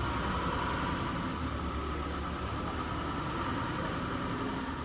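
Steady machinery noise: a low rumble under a higher whir, with no changes.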